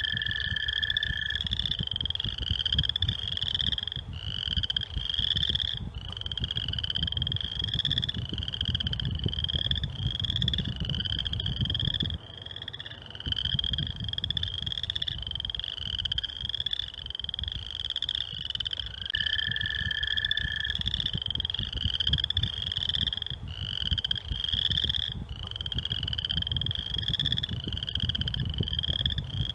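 A dense chorus of frogs calling: short, high, rising calls overlapping without a break. A lower steady trill sounds twice, at the start and about two-thirds through. A low rumble runs underneath.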